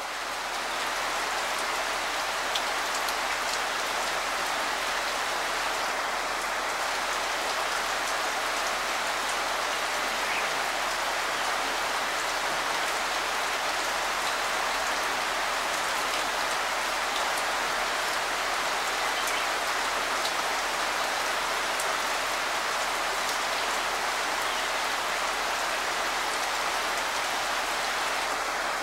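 Steady heavy rain falling, an even hiss with the odd separate drop ticking through it.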